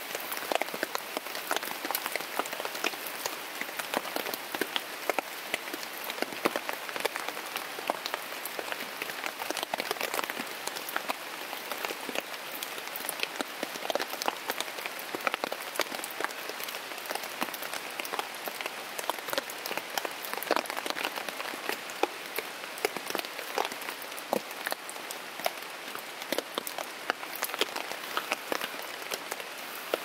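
Steady rain pattering on a tent, heard from inside: an even hiss with many sharp, irregular drop hits.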